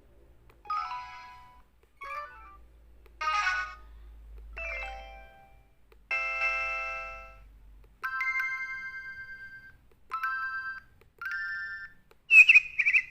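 Samsung SCH-F309 phone's speaker playing a string of short synthesized alert tones and chimes one after another, about nine in all, each about a second long with short gaps. The later ones are steady beeps, and the last, near the end, is a louder warbling trill.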